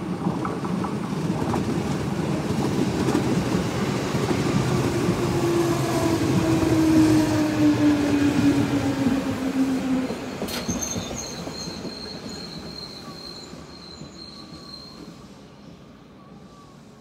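A JR West 221 series electric train passing close at speed: the rumble of wheels on rail builds to a peak about seven to eight seconds in, with a hum that drops in pitch as it goes by. After a sudden cut about ten seconds in, a quieter train at a station gives thin, high-pitched wheel squeal.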